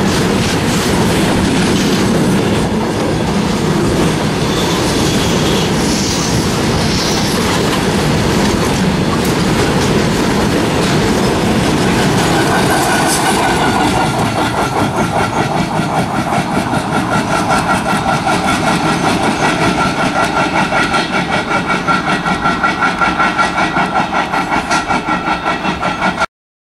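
Freight wagons rolling past with a steady rumble and clatter of wheels over the rails. About halfway through, a pitched squealing tone joins in, pulsing several times a second: the strange sound from the brake van at the tail of the train. The sound cuts off abruptly near the end.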